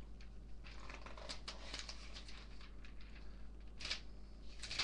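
Pages of a paper catalogue being leafed through: irregular rustles and page flicks, with two sharper flicks near the end.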